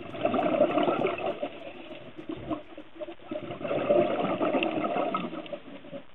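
A scuba diver's exhaled bubbles rushing from the regulator, picked up underwater by the camera: two long exhalations, each lasting about two and a half seconds, with a short pause between them.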